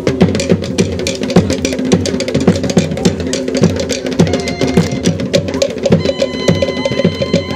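Polynesian drum ensemble playing a fast, driving rhythm on skin drums and hard wooden strikes. A steady held tone comes in over the drumming near the end.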